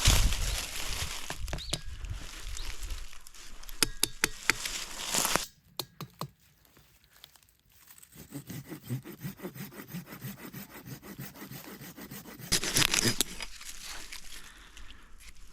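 Wood being worked by hand: scraping with sharp clicks, a short pause about five seconds in, then a run of quick, even strokes like sawing, and a louder rasp near the end.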